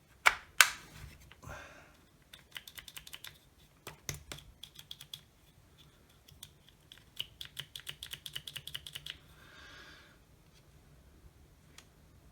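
Two loud plastic clicks as an M18 battery is connected to a partly dismantled Milwaukee SDS hammer drill, then runs of rapid light clicking from handling the drill's parts.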